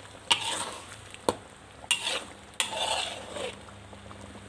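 Wooden spatula stirring a thick coconut-milk prawn sambal in a pan, knocking and scraping against the pan four times in the first three seconds, over the gravy's simmering sizzle; the dish is at the end of its cooking.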